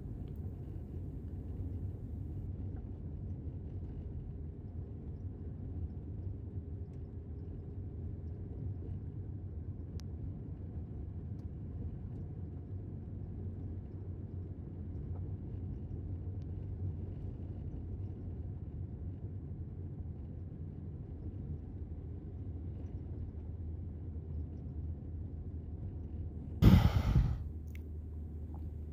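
Car driving, heard from inside the cabin: a steady low rumble of road and engine noise. Near the end, one short, loud burst of noise.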